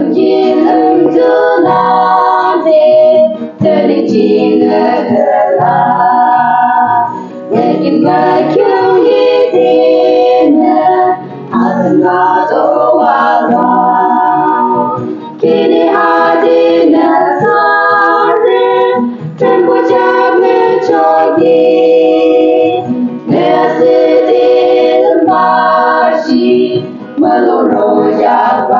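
A small group of women singing a hymn together, in long phrases with a short break for breath every few seconds.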